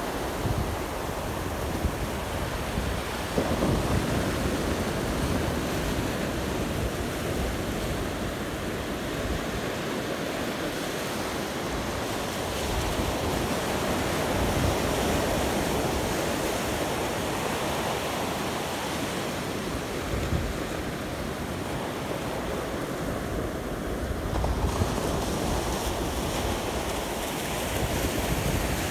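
Ocean surf breaking and washing up the beach, a steady rush, with gusts of wind buffeting the microphone several times.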